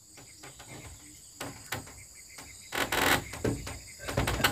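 Insects chirring steadily, with scattered knocks and clatters from building work on a wooden hut; the loudest clatter comes about three seconds in, and another near the end.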